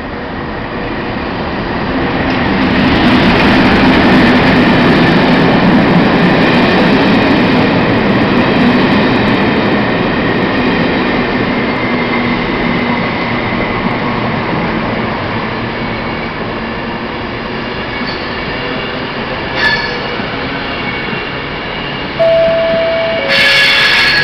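Class 31 diesel locomotive 31233, with its English Electric V12 engine, approaching and running through the station at the head of a test train. Its engine note is loudest over the first ten seconds or so, then gives way to the coaches' wheels rolling past and fading. Near the end there is a brief two-note horn, and then the louder rush of a passing Pendolino electric train comes in abruptly.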